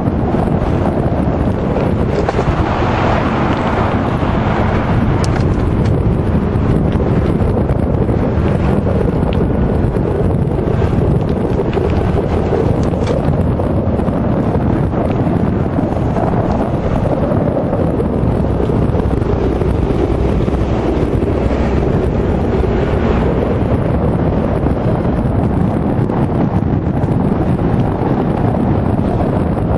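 Steady wind buffeting the microphone of a camera riding on a moving electric bike.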